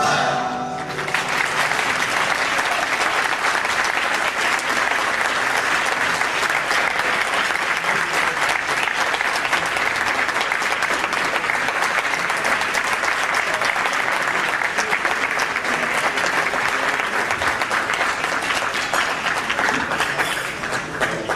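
Audience applauding: the clapping takes over as the music stops about a second in, holds steady, and thins out near the end.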